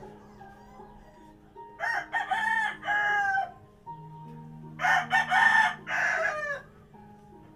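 A rooster crowing twice, each crow about a second and a half long, the second louder, over soft background music.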